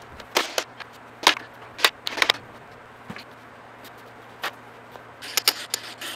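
Metal hand tools and engine parts clinking and clanking as a partly dismantled engine on a stand is worked on: a dozen or so sharp metallic knocks at irregular intervals, bunching together near the end.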